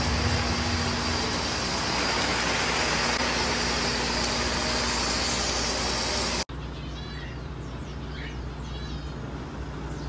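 Artificial rain in an aviary: a steady hiss of spraying and falling water over a low hum, cut off abruptly about six and a half seconds in. After that, sparrows chirping.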